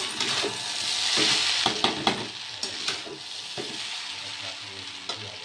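Chow mein noodles sizzling as they are stir-fried in a pan, with a spatula scraping and knocking against the pan several times. The sizzle swells about a second in and eases off later.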